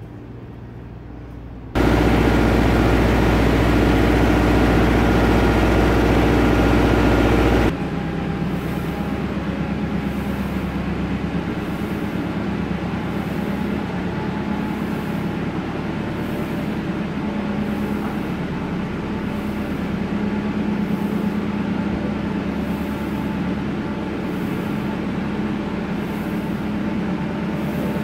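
TMR feed mixer wagon running as it lays feed along a barn feed bunk, a steady mechanical drone with a low hum. It is much louder from about two seconds in until about eight seconds in, then runs steadily with a faint hiss repeating about once a second.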